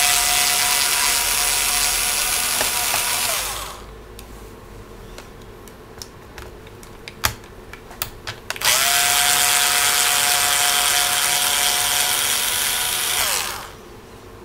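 Cordless electric screwdriver running twice, backing out laptop base screws: first for about three and a half seconds, then again for about five seconds. Each run is a steady motor whine that drops in pitch as the motor spins down. In the pause between the runs there are a few light clicks and taps of the screws and tool being handled.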